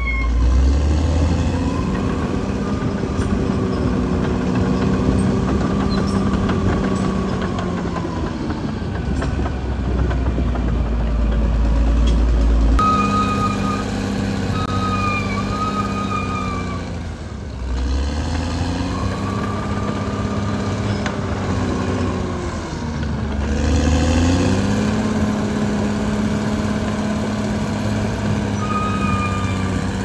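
Caterpillar D6R XL bulldozer's diesel engine running under changing load, its pitch sagging and recovering several times, with a higher whine rising and falling along with it.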